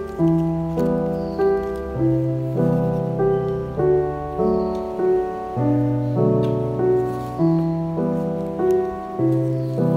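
Background music: a melody of held notes over a steady beat, a little under two beats a second.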